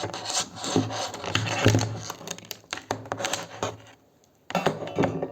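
Irregular rubbing and scraping as a soldering-iron part is pushed and worked into a snug fit by hand. It stops briefly about four seconds in, then starts again.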